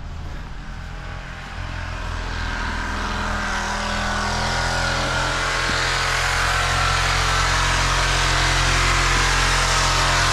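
Reciprocating saw (Sawzall) cutting into a steel oil tank, a steady rough buzzing over a low hum, growing steadily louder.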